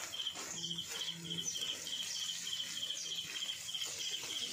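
Metal mesh strainer scraping and scooping chicken pieces in a wok of frying oil. An insect chirps alongside in short pulsed trills about twice a second.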